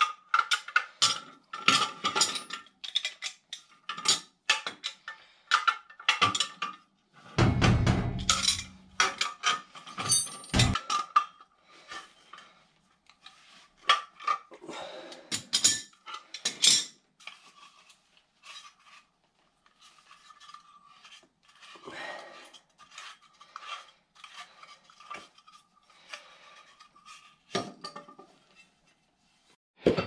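Steel wrenches and gas pipe clinking and clanking in quick, irregular knocks as a furnace gas valve is worked off its pipe, busiest in the first half, with a heavier thud about eight seconds in. A faint steady high tone runs underneath.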